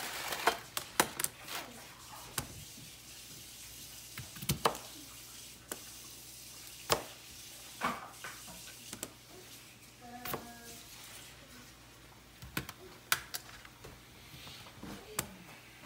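Kitchen knife cutting raw potatoes on a plastic cutting board: sharp knocks at irregular intervals as the blade goes through and strikes the board.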